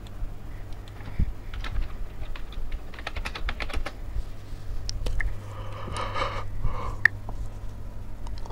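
Typing on a computer keyboard: scattered keystrokes, then a quick run of them about three seconds in, over a low steady hum.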